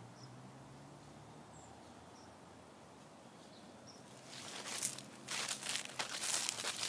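Footsteps crunching through dry fallen leaves, starting about four seconds in as an irregular run of loud crackly steps. Before them there is a quiet stretch with a few faint high chirps.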